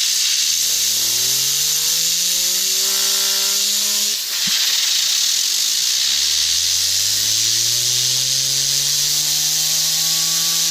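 Compressed air from an air-compressor blow gun hisses loudly and steadily at fidget spinners. Under it the spinners whir, a hum that climbs in pitch as they spin up and then holds. The air cuts out briefly about four seconds in, and then a second spin-up rises again.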